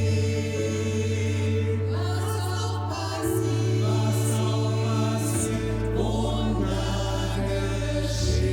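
A choir singing, the sung 's' sounds standing out, over deep held notes that change every few seconds.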